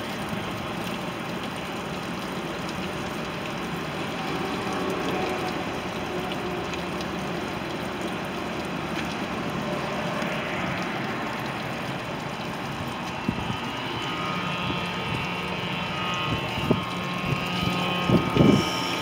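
Boat's sterndrive engine idling steadily on a garden-hose water supply, with water splashing out of the Bravo drive onto pavement; the steady outflow shows the new water-pump impeller pumping. A few knocks come near the end.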